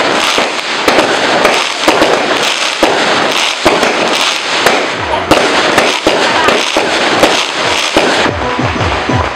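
New Year fireworks and firecrackers going off in a dense, irregular run of sharp cracks and bangs.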